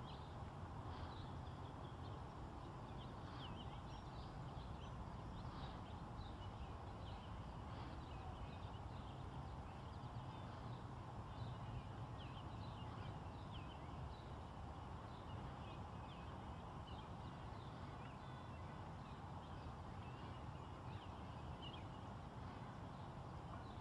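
Faint outdoor ambience: small birds chirping, short high calls scattered irregularly, over a steady low rumble.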